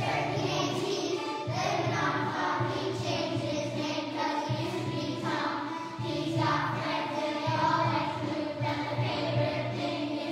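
A Christmas song playing, with singing over a steady, repeating bass line.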